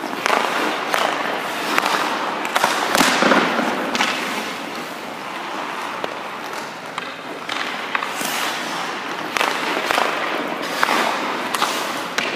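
Hockey goalie's skate blades scraping and hissing on the ice in a run of pushes and stops, with sharp clacks of pads and stick meeting the ice.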